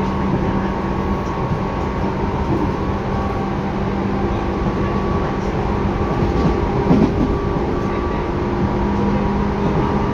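Interior running sound of a Tobu 10030 series field-chopper electric train, heard from inside the passenger car: a steady rumble of wheels and running gear with constant electrical hum tones.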